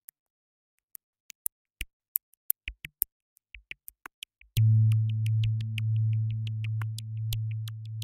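Electronic background music: sparse short synth blips and clicks, then a sustained low synth tone comes in about halfway through and holds under the blips.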